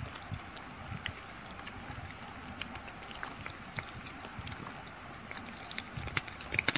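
A kitten licking ice cream off a stick: irregular small wet clicks and smacks of its tongue over a steady background hiss, busier and louder near the end.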